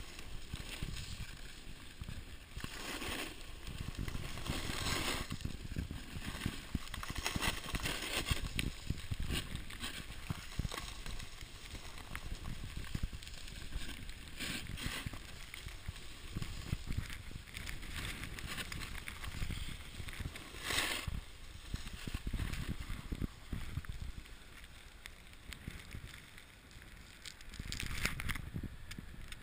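Storm wind rumbling on the microphone. A snowboard scrapes over the snow in a handful of loud hissing swishes a few seconds apart.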